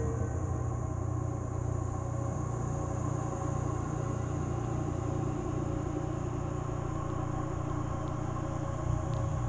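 A low, steady rumbling drone with faint held higher tones above it, unchanging throughout.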